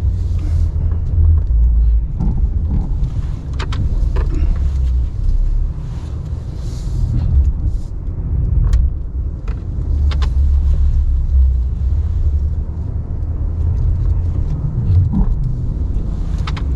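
Ram 1500 Classic pickup running at low speed while it is manoeuvred to turn around, a steady low engine rumble with scattered clicks and knocks.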